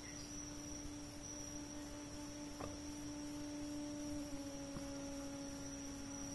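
A faint, steady hum whose pitch dips slightly about four seconds in, with a thin, high continuous tone above it.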